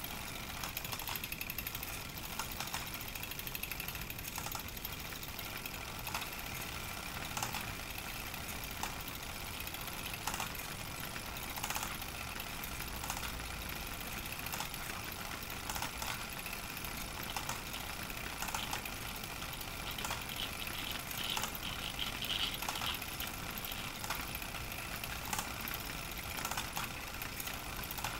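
Pathescope Baby hand-crank projector running as 9.5 mm film is cranked through it: a steady mechanical rattle, with sharper clicks every second or two.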